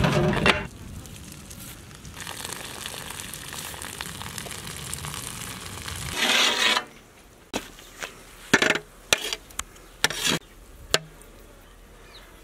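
Cooking water from a large aluminium pot of boiled basmati rice pouring out and splashing onto the ground as the pot is tipped to drain, a steady hiss that swells briefly and stops a little after halfway. Then several sharp metallic knocks and scrapes of a perforated steel skimmer against the pot, after a short loud noise at the very start.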